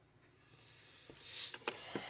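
Workbench handling noise: a few light metallic clicks and a scraping rustle that builds from about a second in, as tools and parts are moved about on the bench.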